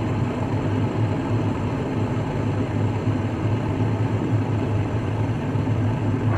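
Glass electric kettle heating water, a steady rumble and hiss as small bubbles rise from its heating base, not yet at a full boil.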